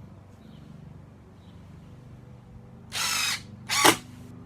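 Impact driver hammering a screw into wood in short bursts, just enough clicks to set it: one burst about three seconds in, a shorter, louder one just after, and a third starting at the very end.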